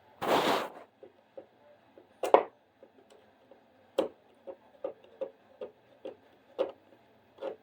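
Hand work on a wall switch: a short scraping rustle, then a run of irregular light clicks and taps, about two a second, as the switch and its screws are worked at.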